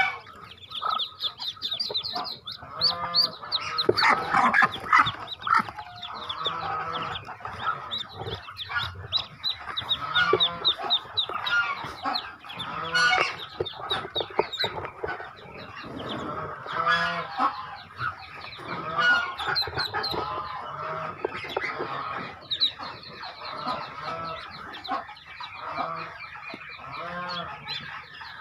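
A crowd of Muscovy ducklings peeping continuously in short, high, rapid calls, with repeated lower clucking calls from adult fowl among them.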